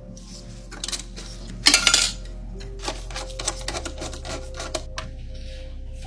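Sharp clicks and clattering of hard parts being handled and fitted, loudest in a quick cluster about two seconds in, over background music with a steady low bass.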